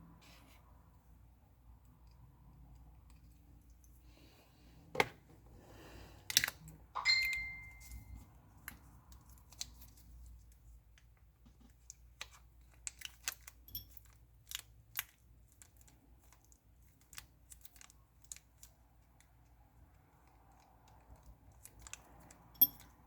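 Scattered small clicks and taps of hand tools and phone parts being handled during smartphone reassembly, with one brief metallic ring about seven seconds in.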